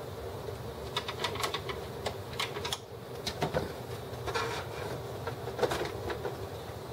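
Short plastic clicks, snaps and rattles as the plastic housing of an HP Officejet scanner is pried and worked apart by hand, a dozen or so in irregular clusters, over a steady faint hum.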